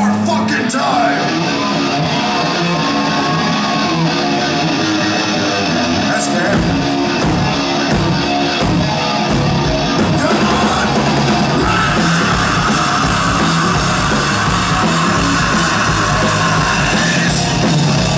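Live heavy metal band playing loud through a small club's PA: distorted guitar and bass guitar under yelled vocals. The heavy low end comes in about six seconds in.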